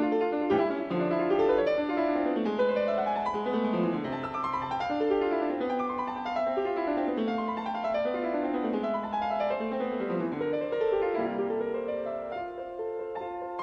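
Background piano music: quick runs of notes climbing and falling over a steady accompaniment.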